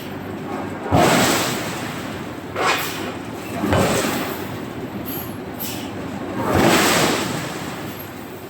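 Heavy forging-shop machinery and metal working: four loud clanking, rushing bursts about a second, two and a half, four and six and a half seconds in, each fading off, over a steady machine background.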